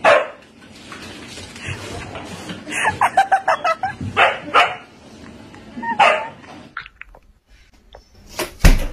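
A husky barking and yipping in short calls, in bursts about three, four and a half and six seconds in. Near the end comes one sharp, loud thump.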